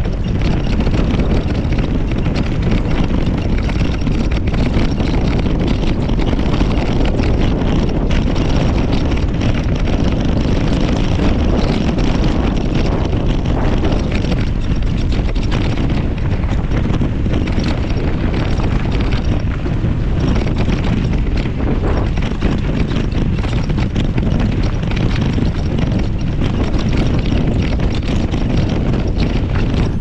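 Wind buffeting the microphone of a mountain bike's mounted camera on a fast descent, over the rumble of knobby tyres rolling on dirt singletrack. Many small clicks and rattles from the bike over the bumps run through it.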